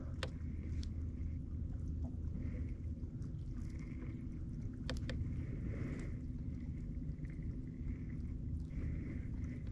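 Steady low hum of a small boat's motor running slowly, with a few soft swishes and a few light clicks.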